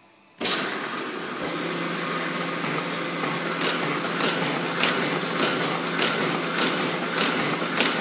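Stahl T50 buckle-plate paper folding machine running: a dense mechanical clatter that comes in suddenly about half a second in. A steady hum joins about a second later, and from the middle there are regular clicks about twice a second as sheets feed through the folds.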